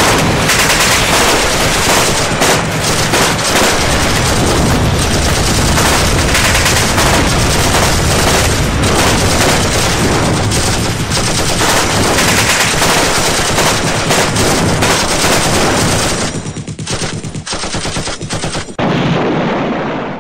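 Heavy, continuous automatic gunfire, many rounds packed close together, loud throughout; near the end it breaks into separate bursts and then cuts off suddenly.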